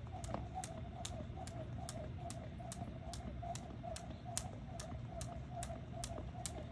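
Jump rope slapping the ground in an even rhythm, about two and a half sharp ticks a second. Behind it runs a steady warbling trill.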